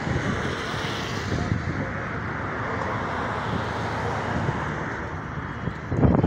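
Steady hum of road traffic, an even rushing noise with no single vehicle standing out.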